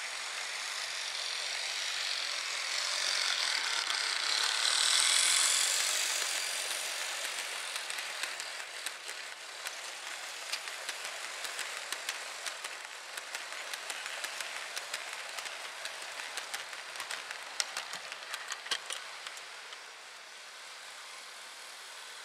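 Model railway freight train of covered hopper wagons rolling past on the track. A steady rushing noise of the wheels and drive swells to its loudest about five seconds in. It is followed by many quick, irregular clicks as the wagon wheels run over the rail joints, fading near the end.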